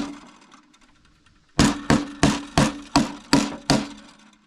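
A series of sharp knocks, about three a second, from tapping a small screwdriver against leftover pop rivets to drive them out of a snowmobile's rear bumper mounting. There is one knock at the start, then a string of seven after a short pause, each ringing briefly, over a steady low hum.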